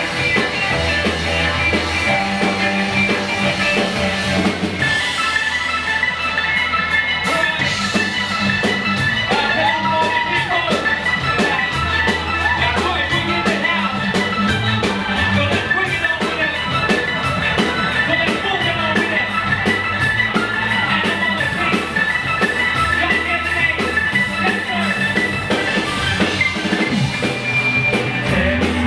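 Live band playing rock music: a drum kit keeps a steady beat under sustained ringing chords.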